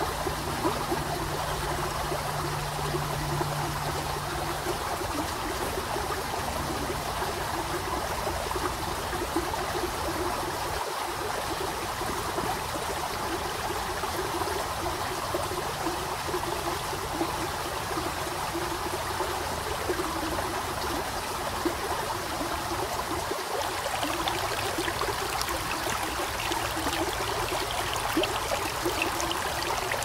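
A small, shallow forest stream trickling and burbling over stones and pebbles as a steady rush of running water. It turns a little brighter and more splashy near the end.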